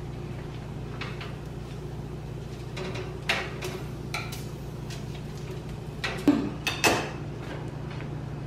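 A foil-lined metal baking tray and oven rack clinking as bacon is flipped in an open oven, then two louder knocks about six and seven seconds in as the oven is closed. A steady low hum runs underneath.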